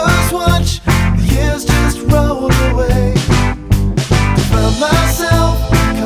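Background music: a rock-style song with a steady drum beat and bass.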